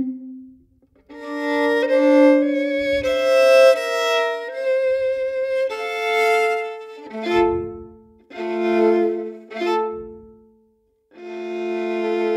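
Solo violin playing unaccompanied, bowed phrases with vibrato and chords of two or more notes, broken by short pauses. It ends on a long held chord.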